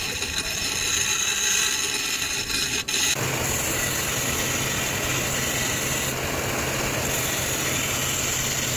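Half-inch steel bar spun in a cordless drill and ground against a bench grinder wheel, then, from about three seconds in, against a running belt sander that adds a steady low hum: the end of the bar is being rounded over.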